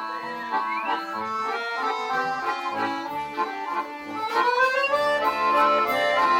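Accordion orchestra playing a tune in sustained, stacked chords. About four seconds in a rising run leads into a fuller, louder passage with low bass notes underneath.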